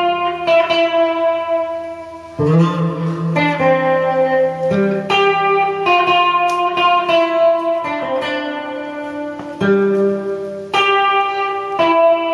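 Electric guitar playing a slow run of chords, each struck every second or two and left to ring.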